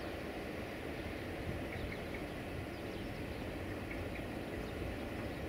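Steady low rumble of an approaching 060-DA (Electroputere LDE2100) diesel-electric locomotive's Sulzer engine, with a few short bird chirps about two seconds in and again near the end.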